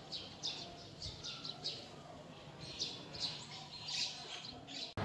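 Small birds chirping: a dozen or so short, high-pitched chirps come in irregular bunches over a faint outdoor background.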